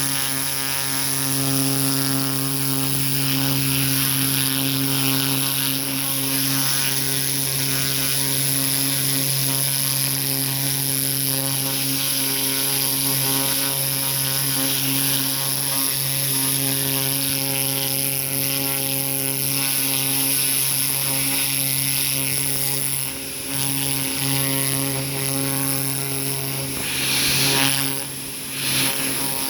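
Pressure washer running steadily, its motor humming under the hiss of the turbo-tip water spray. The spray dips briefly a few times near the end.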